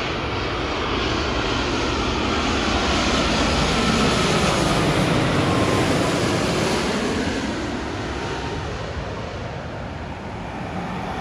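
Boeing 787-9 Dreamliner's Rolls-Royce Trent 1000 turbofans on landing approach passing low overhead. A jet rumble swells to its loudest about four to six seconds in, with a faint whine falling in pitch as it passes, then fades as the aircraft moves away.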